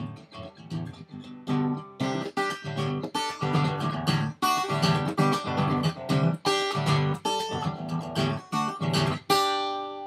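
Acoustic guitar played without singing: light playing for the first couple of seconds, then steady rhythmic strumming of chords, ending on a final strum about nine seconds in that is left to ring.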